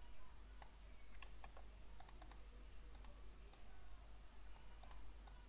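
Scattered sharp clicks of a computer mouse, some in quick pairs, over a faint steady low hum.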